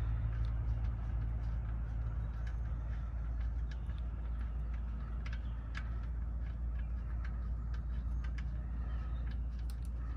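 Steady low hum, with scattered faint light clicks as the oil pan drain plug is turned out by hand.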